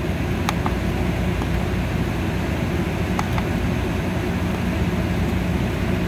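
Rooftop package air-conditioning unit running steadily, its fans and compressor making a constant low mechanical noise, with a couple of faint clicks from the buttons on the economizer controller's keypad being pressed.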